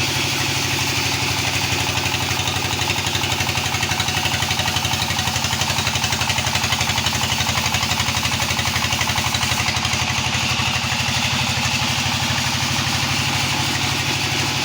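A small engine running steadily at a constant speed, with a fast even pulse and a steady hiss above it.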